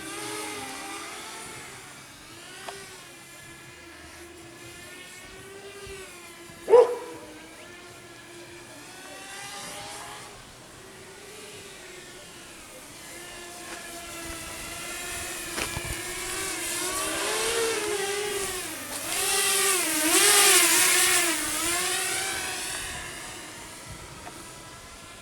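Walkera F210 racing quadcopter's electric motors whining, the pitch wavering with the throttle. It grows louder in the second half with quick rising and falling swings of pitch. A short sharp knock comes about seven seconds in.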